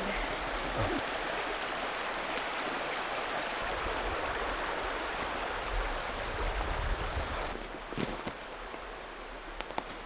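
Steady rush of flowing river water, easing somewhat about seven and a half seconds in, with a single light knock near eight seconds.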